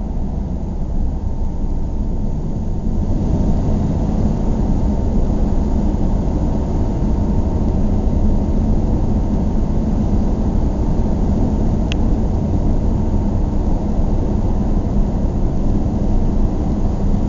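Car driving at a steady speed: a low, even rumble of road and engine noise, with one brief click about twelve seconds in.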